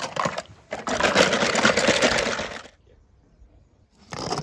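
Rapid clattering of small hard objects in two bursts: one lasting nearly three seconds, then a shorter one near the end.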